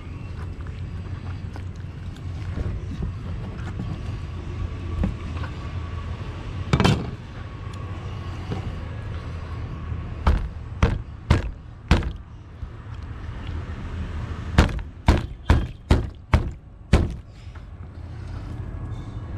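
Large knife chopping a barracuda into steaks on a plastic cutting board, the palm slapping the back of the blade to drive it through the backbone. One dull thud about a third of the way in, then two runs of sharp knocks, four and then six, about two a second.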